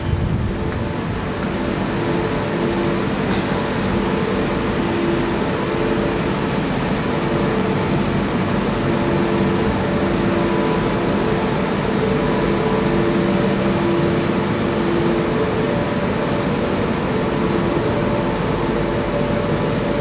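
Steady machine hum with several held tones from a stationary Arlanda Express electric train's onboard equipment, mixed with the underground station's ventilation.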